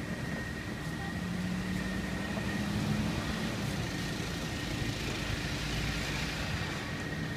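Commercial axial exhaust fan running steadily: a continuous whoosh of moving air with a low hum and a thin, steady high whine. Street traffic swells the noise in the middle.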